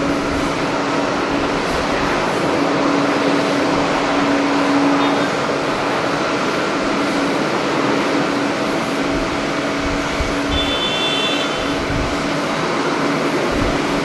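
Steady jet airliner engine noise with a droning hum, and wind gusting on the microphone now and then.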